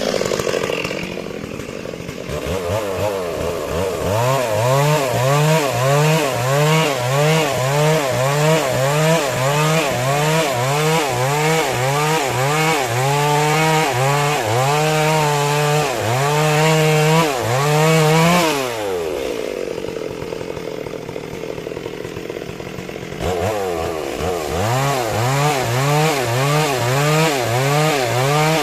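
Stihl MS 382 two-stroke chainsaw at full throttle cutting through a large trembesi log, its engine pitch rising and sagging about once a second as the chain loads up in the wood. About two-thirds of the way through the pitch drops to a lower running speed for a few seconds, then it goes back to full throttle with the same rise and fall.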